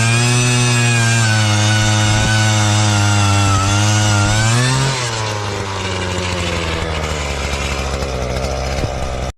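A small two-stroke petrol engine runs at high revs, then drops back to a rougher, quieter idle about five seconds in.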